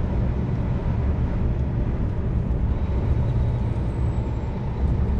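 Scania truck's diesel engine running as the lorry drives along a street, a steady low drone with road noise.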